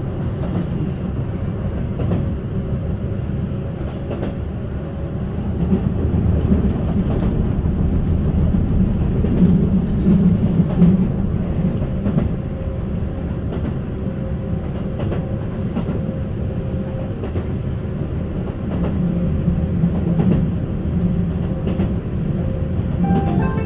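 Keihan 8000 series electric train running, heard from inside the passenger car: a steady low rumble of wheels on rail with clicks over the rail joints. The rumble grows louder for several seconds about a third of the way in. A musical chime starts at the very end.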